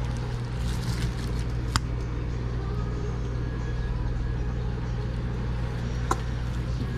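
Steady low hum of running kitchen equipment, with two short sharp clicks, one about two seconds in and one near the end.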